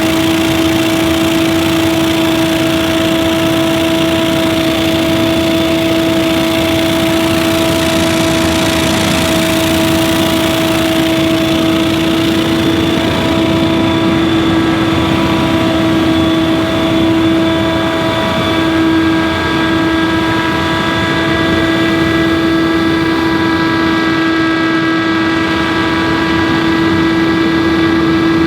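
Scag Windstorm stand-on leaf blower running steadily: a constant engine and fan hum with a strong steady tone, over a heavy rush of air.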